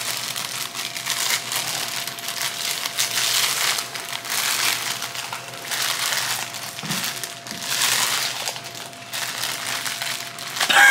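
Thin plastic bag crinkling in repeated bursts as it is twisted and knotted shut by hand.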